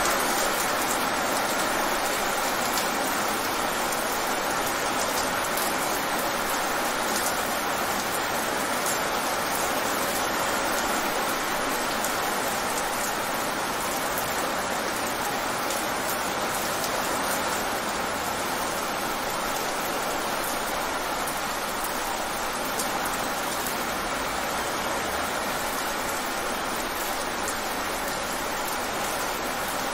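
Rain falling fast on wet pavement: a steady, dense hiss of drops splashing on the wet surface.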